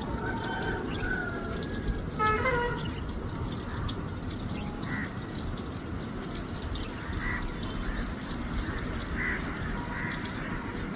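A crow giving a few short, hoarse, cough-like calls spaced a second or more apart, over a steady background hiss.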